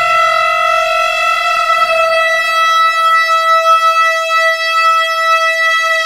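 Vacuum tube ring modulator with neon relaxation oscillators putting out a held electronic tone of steady pitch, rich in overtones, its tone colour changing about two seconds in.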